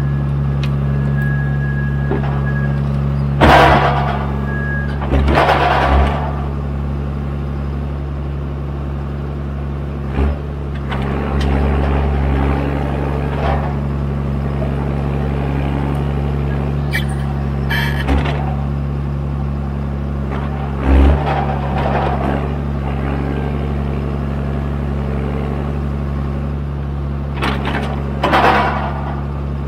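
John Deere 1410D forwarder's 6.8-litre six-cylinder diesel running steadily as it works the crane, its load swelling briefly partway through. A handful of loud knocks and clunks, typical of the crane and grapple handling logs, stand out over the engine.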